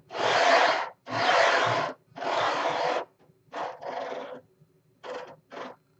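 Pillow-block carriage slid back and forth by hand along 12 mm steel rods, giving a rasping rub on each stroke: three long strokes about a second apart, then four shorter, quicker ones. The blocks are binding slightly on the rods.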